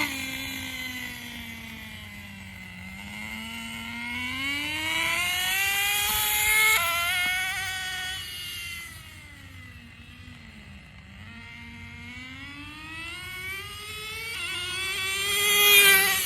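Nitro RC car's .15 two-stroke glow engine running at speed, its high whine climbing and falling as the car accelerates, slows and passes, loudest about two-thirds of the way in and again near the end. The engine is running low on fuel.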